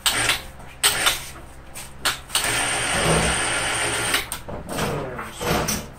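Orange ratchet tie-down strap being tightened around a battery pack: loud metallic clicks and clunks from the ratchet, with a long rasp of webbing lasting nearly two seconds in the middle.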